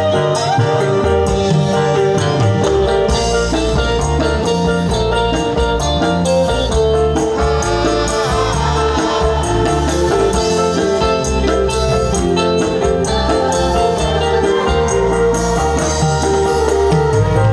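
Live orkes Melayu dangdut band music played loud through a large line-array PA system, heard from among the crowd at a steady level with heavy bass.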